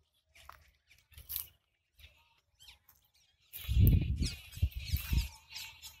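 Wild birds chirping and trilling in a rapid, overlapping chorus. About three and a half seconds in, a loud low rumbling noise on the microphone joins them for under two seconds.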